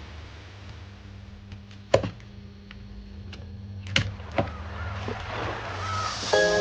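A few sharp clicks and taps over a steady low electrical hum, with music fading in near the end.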